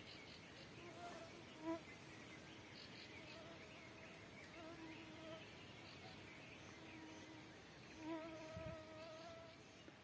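A flying insect buzzing close to the microphone, its drone wavering and swelling as it passes by, loudest briefly just under two seconds in and again near the end. Faint bird calls sound in the background.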